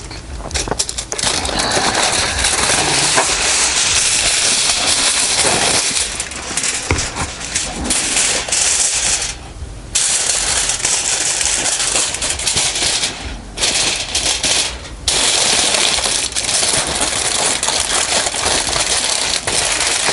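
Aluminium foil being crinkled, creased and folded by hand into a makeshift pan, a loud continuous crackle with brief pauses about a third, two-thirds and three-quarters of the way through.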